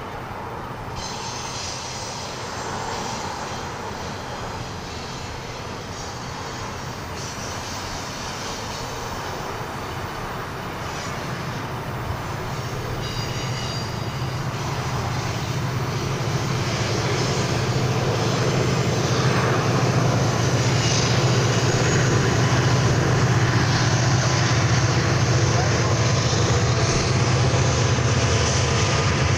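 Union Pacific double-stack container freight train rolling past with a steady rumble of wheels on rail. In the second half the diesel engines of the locomotives at the rear of the train grow steadily louder as they approach.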